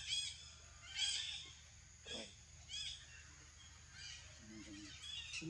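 Short, high-pitched animal calls repeated about once a second, with one lower call sliding downward about two seconds in.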